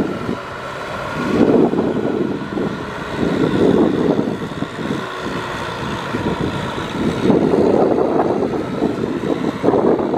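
Kubota four-wheel-drive tractor's diesel engine running steadily under load as its rear rotary tiller churns through a flooded paddy, with uneven gusts of wind on the microphone.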